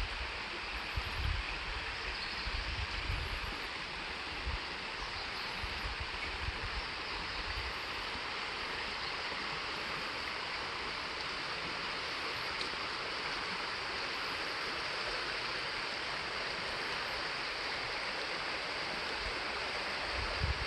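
Mountain stream flowing over rocks: a steady rushing of water, with a few low thumps in the first several seconds.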